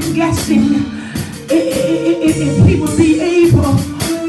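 Live gospel praise music in a church: singing over a band with drums and cymbals.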